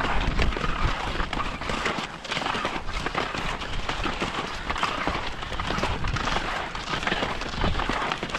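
Touring skis sliding and crunching on snow as a skier climbs uphill on skins, a close, dense crackle of snow under each stride.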